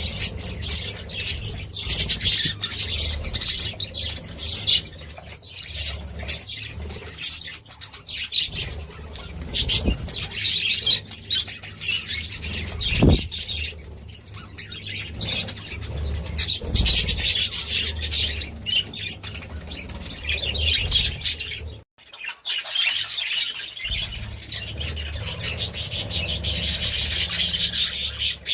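A flock of budgerigars chattering and chirping continuously in a dense, busy warble, with a short break about three-quarters of the way through.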